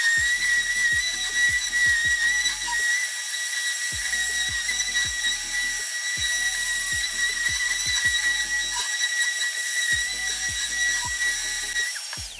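Random orbital sander running with a steady high whine as it sands a maple and epoxy resin board, then switched off about twelve seconds in, its pitch falling as it winds down.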